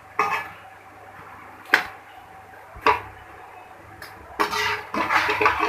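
Metal spoon clinking against a frying pan as the fried bondas are lifted out of the oil: three sharp clinks spread over the first three seconds, then a busier run of clattering and scraping near the end.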